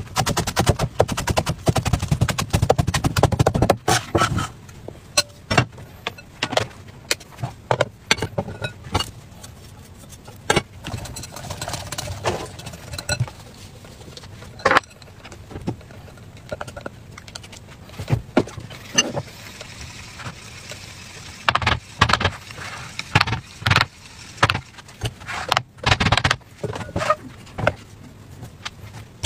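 A cleaver chops rapidly through green onions onto a wooden chopping board, then stops about four seconds in. After that come scattered single knocks and taps as things are set down and handled on the board.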